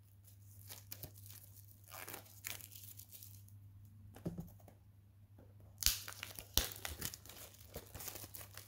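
Plastic shrink-wrap being torn and peeled off a steelbook case, crackling and crinkling in small irregular bursts. The crinkling grows denser and louder from about six seconds in.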